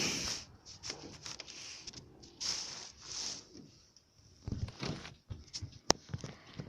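Rustling and handling noises in several short hissy swells, a few soft knocks, and one sharp click near the end.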